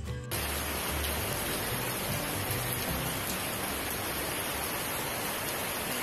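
Steady hiss of heavy rain, beginning abruptly just after the start, with background music underneath.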